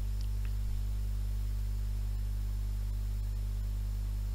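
Steady low electrical mains hum with faint hiss on the recording, with no other event.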